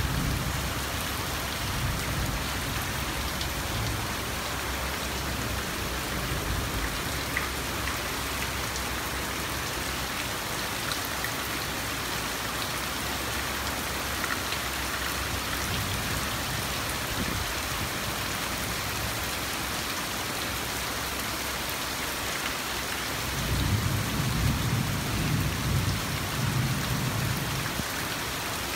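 Steady rain falling on garden foliage and paving, an even hiss. A low rumble swells at the start and again near the end.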